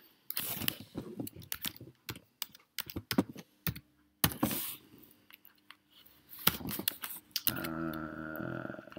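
Typing on a computer keyboard: irregular keystrokes and clicks as numbers are entered. Near the end comes a short hummed voice sound.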